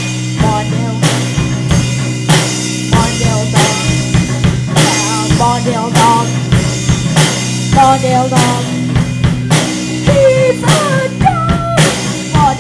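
Rock band playing an instrumental break: a drum kit keeping a steady beat with bass drum and snare under sustained bass and guitar, with a wavering lead melody line above.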